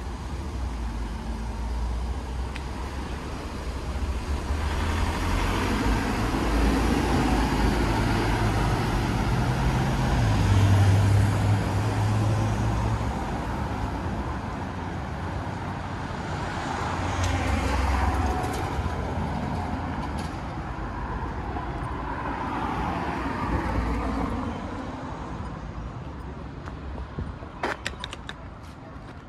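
City street traffic: several vehicles pass one after another, each rising and fading with a low engine rumble. The loudest is a heavier vehicle with a deep engine hum about ten seconds in. The traffic dies down near the end, where a few sharp clicks are heard.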